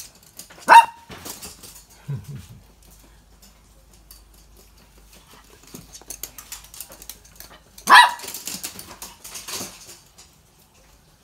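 Toy poodle barking, once about a second in and again about eight seconds in, with its claws clicking on a hard floor between the barks.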